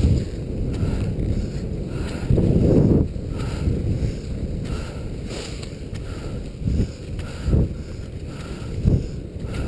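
Wind buffeting the microphone of a skier moving fast behind dogs, with a heavy gust a little over two seconds in. Skate skis and poles scrape and knock on the snow, with a few sharper knocks in the second half.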